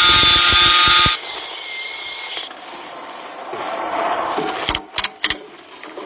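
An angle grinder runs loudly with a high whine and cuts off about a second in. It is followed by quieter working noise, then a few sharp knocks of a hammer on a steel pin near the end.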